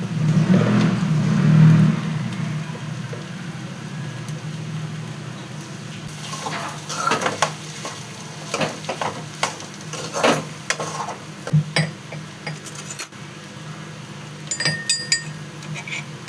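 A metal spoon stirring and scraping in a cooking pan, with a run of clinks and scrapes starting about six seconds in, over a steady low hum.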